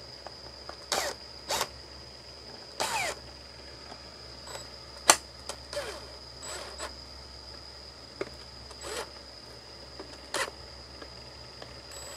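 Hand screwdriver driving the lid screws into a plastic junction box: a dozen or so irregular clicks, taps and short scrapes of the tool and the plastic case, the sharpest about five seconds in.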